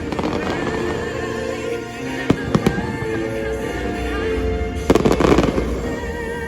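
Fireworks exploding over a loud orchestral show soundtrack. There are sharp bangs about two seconds in, and a dense burst of crackling about five seconds in.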